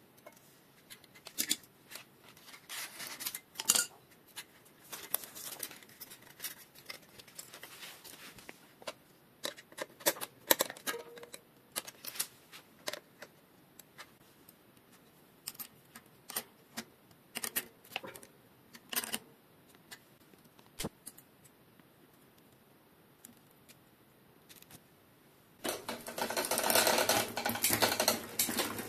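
Scattered light metallic clicks and taps of a hex key and hands working on a mountain bike's Shimano Altus front derailleur. Near the end the pedal is turned by hand and the chain runs over the chainrings, cassette and rear derailleur with a fast, dense clatter, the loudest part.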